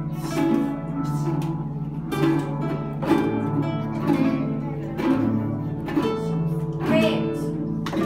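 A group of children and their teacher strumming small acoustic guitars together in unison, one chord strum about every second.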